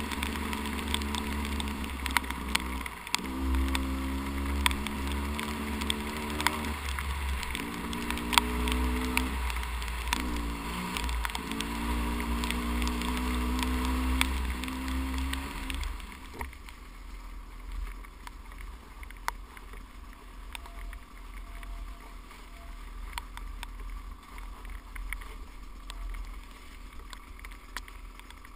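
300 cc two-stroke enduro dirt bike engine running on and off the throttle, its pitch dipping and climbing again several times, with scattered sharp clicks. About 16 seconds in it drops to a much quieter low running.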